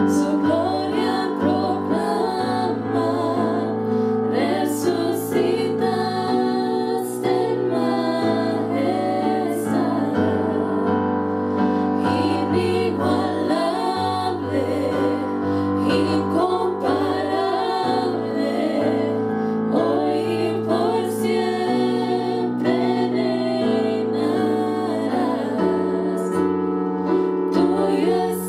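Three women singing a worship song together into microphones over a steady keyboard accompaniment, the held chords and bass notes changing every second or two.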